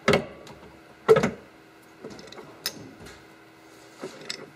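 Clunks and knocks from a metal lathe as its spindle speed is changed, two loud ones about a second apart followed by several lighter knocks, over a faint steady hum.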